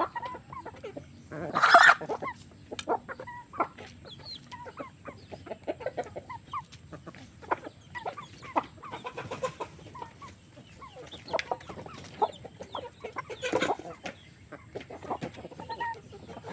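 A flock of free-range chickens clucking, many short calls overlapping. Two louder, harsher bursts stand out, about two seconds in and again near thirteen seconds.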